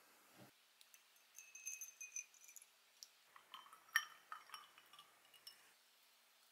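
Faint clinks of ice and glass: ice cubes knocking against stemmed glasses as milk is poured over them. There are a few short glassy rings, and the sharpest clink comes about four seconds in.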